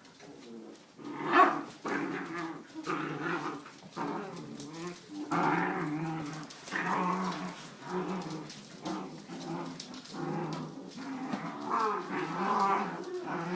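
Puppies growling continuously, with a sharp louder yap about a second and a half in.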